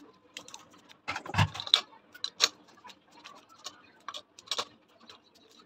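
Irregular small clicks and taps of a kitchen knife and hands on a steel plate as red onions are peeled and green chilli stems are pulled off, with a louder knock about a second and a half in.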